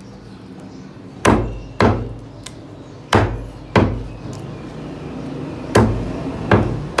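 Meat cleaver chopping through chicken pieces on a chopping block: six hard chops in three pairs, each pair about half a second apart.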